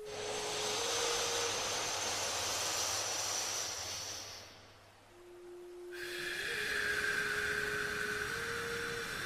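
A slow breath in through the nose lasting about four seconds, then after a short pause a slow breath out, paced for alternate-nostril pranayama breathing. A soft sustained tone sounds beneath, stepping slightly in pitch.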